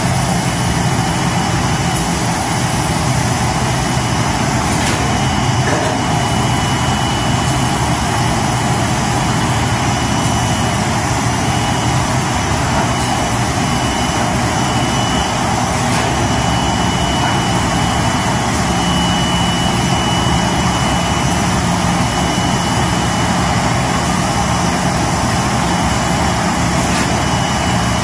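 MTM1080 metalized film laminating machine running: a loud, steady mechanical hum and whir from its drives and rollers, with a faint high whine that comes and goes.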